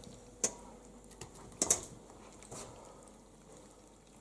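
Hands handling and squeezing small wet fish in a plastic basin, with a few light sharp clicks and taps as the fish are moved about.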